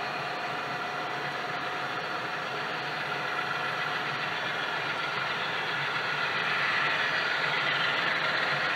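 HO scale model diesel locomotive running with a steady diesel-engine sound. It grows louder in the last couple of seconds as the locomotive comes out of the tunnel toward the listener.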